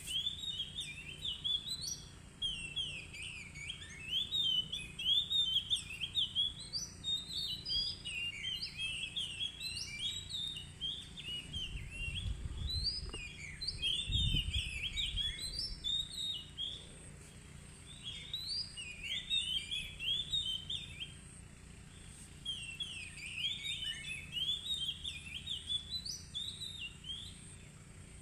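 Oriental magpie-robin in full song: long runs of rapid, varied whistled and warbled phrases with short pauses between runs.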